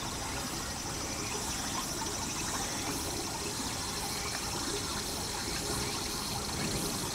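Steady sound of running water, an even rushing with no single splash standing out.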